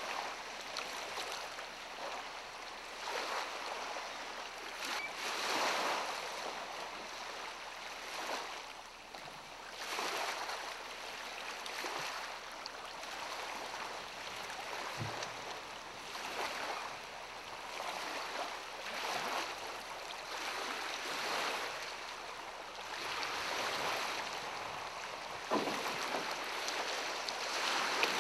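Small lake waves washing against a gravel shore, the wash rising and falling every couple of seconds.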